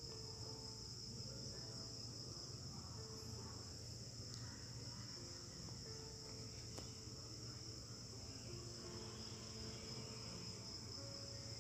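Faint, steady high-pitched insect trill, like crickets, running without a break.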